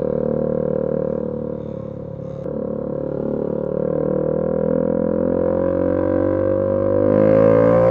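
KTM 200 Duke's single-cylinder engine running under load with a droning exhaust note. It dips briefly about two seconds in, then rises steadily in pitch as the bike accelerates, loudest near the end, with wind hiss building along with it.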